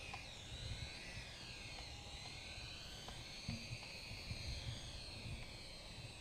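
Small electric motors and twin coaxial rotors of a DEERC toy RC helicopter in flight, a high whine that rises and falls in pitch as the motors change speed.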